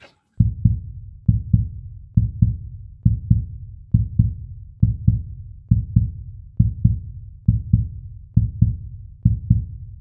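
Background music: a deep, heartbeat-like bass-drum beat, pairs of low thumps repeating steadily a little under once a second.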